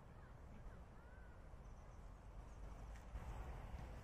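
Faint outdoor ambience: a low rumble of wind on the microphone with a few short, faint bird chirps in the first second or so.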